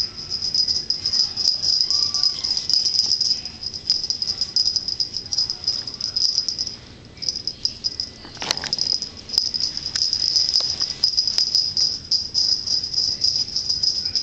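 Motor of a battery-powered Weasel Ball toy running inside its plastic ball: a high, rapidly pulsing buzz and rattle. It drops away about seven seconds in, a knock comes about a second later, and then it runs again.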